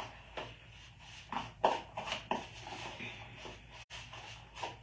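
Spatula scraping and stirring a gritty mix of sugar, coconut oil and ground candy cane in a plastic container: irregular scrapes, a few of them louder.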